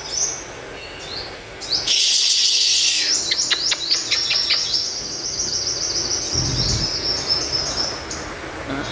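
Male olive-backed sunbird singing: a loud burst of rapid high twittering about two seconds in, then a long run of quick, high, falling chirps that ends near the close.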